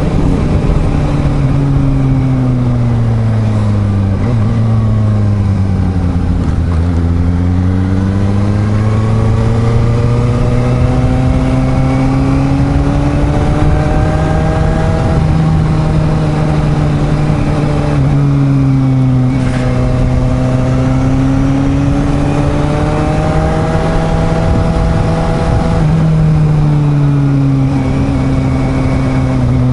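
Suzuki GSR750's inline-four engine under way on the road: its pitch falls over the first few seconds, climbs steadily, then drops sharply several times as it changes gear and climbs again, with a last drop near the end.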